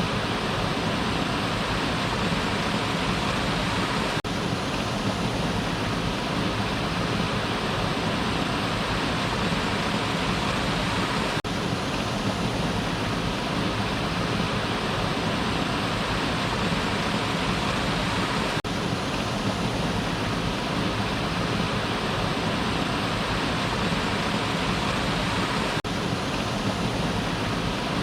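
Waterfall: falling water rushing in a steady, unbroken roar of white noise.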